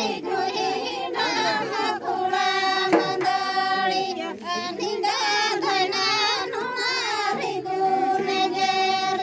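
A group of women singing a Santali Sohrai song together in unison, in long, wavering held notes.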